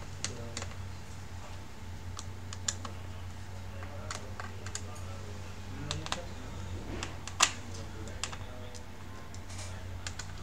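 Small irregular clicks and taps of a precision screwdriver working the screws of an open laptop's chassis, one sharper click about seven seconds in, over a steady low hum.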